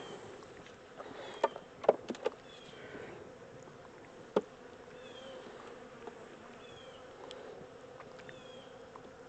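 Honey bees buzzing steadily around an open hive. There are a few sharp knocks about one and a half to two and a half seconds in, and one more about four seconds in.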